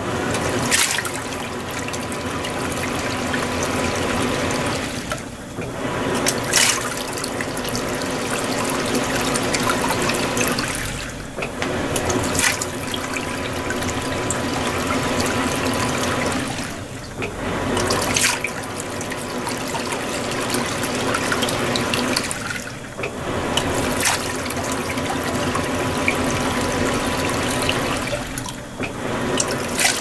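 Water churning and sloshing in the tub of a Panasonic 16 kg top-loading washer (NA-FS160P3X) agitating in its Super Delicado wash cycle, over a steady hum. The churning stops briefly about every six seconds and then starts again.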